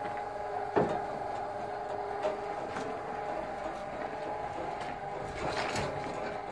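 A steady mechanical hum, with a sharp knock about a second in and a few more knocks near the end.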